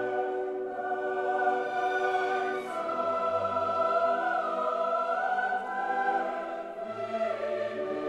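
Background music: slow choral singing, held chords that change every few seconds.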